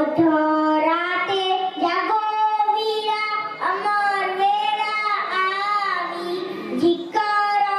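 A young boy singing into a handheld microphone, in long held notes that slide in pitch.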